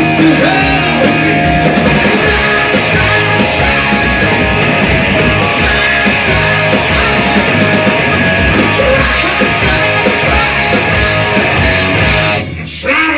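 Rock band playing live, with distorted electric guitars, bass, drums and a lead singer. The full band cuts out abruptly near the end.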